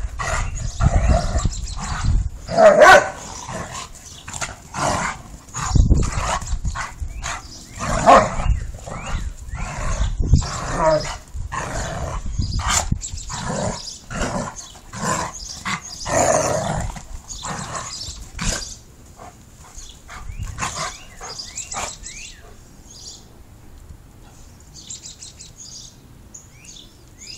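Two dogs, a Doberman and a white shepherd, play-fighting, with rapid barking and growling. The noise thins out and dies down in the last third.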